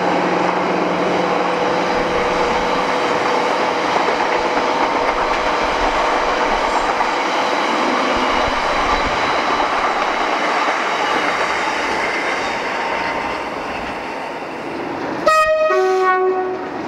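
Diesel locomotive passing under full power, its engine thrashing with steady rail noise beneath. Near the end it sounds a two-tone horn, a short high note then a lower one.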